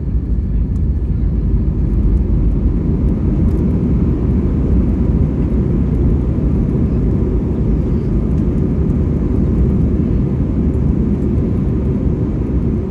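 Steady low rumble inside the cabin of an Airbus A321 rolling on the ground after landing, with a faint steady whine.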